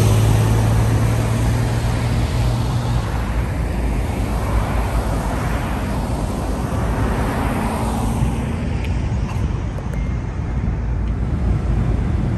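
Street traffic: a car passes close by at the start, its engine hum and tyre noise fading over the first few seconds, then a steady hum of traffic. A low rumble near the end.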